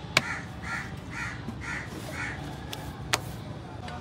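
A bird calling a series of harsh calls, about two a second, five in a row, that stop a little after two seconds in. Two sharp clicks from hands working in the car's engine bay: the louder one just after the start, the other about three seconds in.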